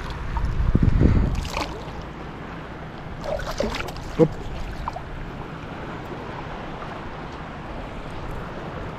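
Wind buffeting the microphone over shallow sea water, with a strong gust about a second in. A few brief splashes and knocks, one sharp, come around three to four seconds in as a small barracuda is grabbed by hand from the water, then steady wind and water.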